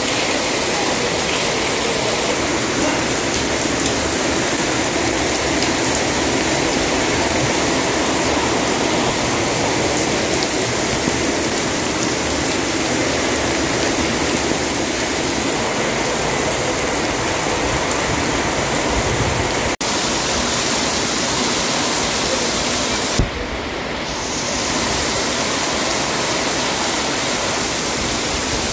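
Heavy rain pouring down and splashing on a concrete step and floor: a loud, steady, dense hiss. About two-thirds of the way through there is one sharp knock, after which the sound is briefly duller before the full hiss returns.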